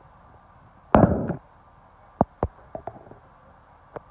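An excavator's demolition grab breaking up a brick-and-timber building: a loud crash of breaking and falling debris about a second in, then a string of single sharp cracks and knocks.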